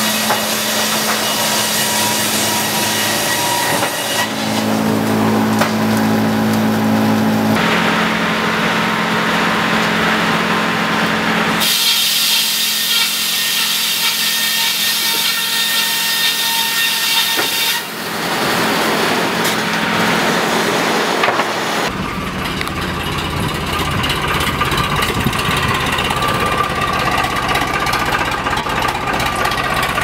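Sawmill saw and machinery running and cutting timber: a steady mechanical hum and dense sawing noise. The sound changes abruptly every few seconds as short clips follow one another.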